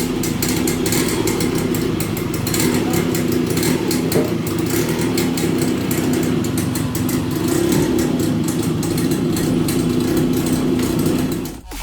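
A Yamaha RX-series two-stroke single-cylinder motorcycle engine idling steadily, then dropping away near the end.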